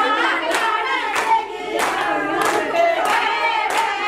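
A group of voices singing together, with hands clapping along in a steady beat of about three claps every two seconds.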